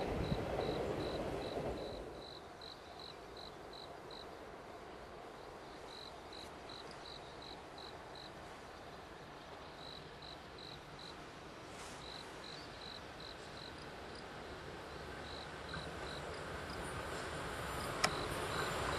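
A cricket chirping in short evenly spaced high notes, about three a second, in spells with brief pauses. The tail of a passing train's rumble dies away in the first two seconds, and near the end the rumble of a 413/475 series electric local train approaching grows louder, with one sharp click shortly before the end.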